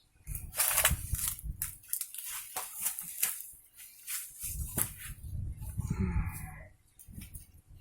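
Rustling and many sharp clicks close to the microphone, from handling or movement, with a short pitched call about six seconds in.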